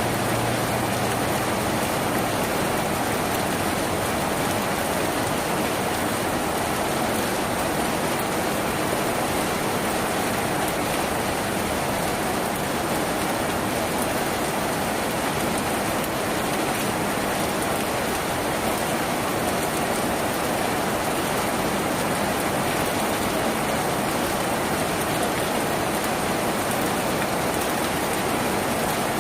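Steady heavy rain drumming on a tin roof, an even unbroken patter with no thunder or other events.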